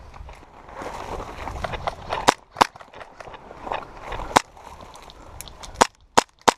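Airsoft gun firing about six separate single shots at irregular intervals, each a sharp crack, with rustling movement before the first shots.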